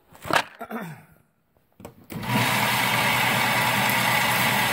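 Electric motor of an indoor range's target retrieval carrier starting up about two seconds in and running with a steady hum as it draws the paper target back toward the firing line.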